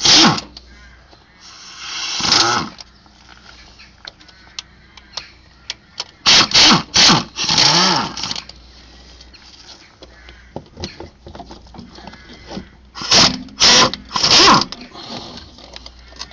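Power tool on a long socket extension undoing the 13 mm bolts that hold a front-wheel-drive van's driveshaft to the gearbox, running in short bursts: once at the start, once about 2 s in, a cluster of bursts around 6–8 s and another around 13–14.5 s, with pauses between.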